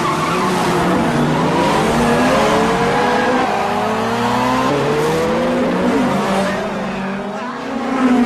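Several tuned street cars racing: their engines revving hard with rising pitch, breaking off at each upshift and climbing again, mixed with tyre squeal from wheelspin at the launch.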